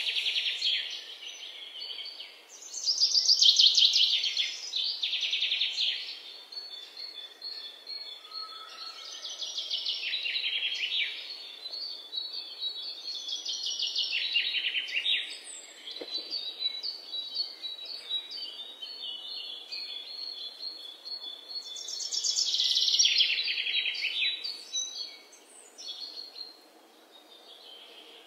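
Birdsong: fast trilled phrases a second or two long, several falling in pitch, repeated every few seconds over a faint steady hiss.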